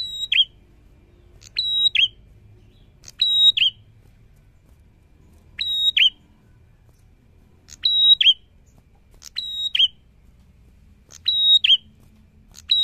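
Caged prenjak calling: a sharp two-part whistled note, a brief level high tone dropping to a lower one, repeated about every one and a half to two seconds.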